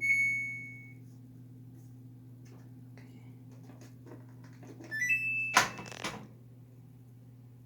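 Washing machine control panel beeping as it is started: one clear beep that rings out for about a second, then about five seconds in a quick run of beeps rising in pitch, followed at once by a brief loud clunk. A steady low hum runs underneath.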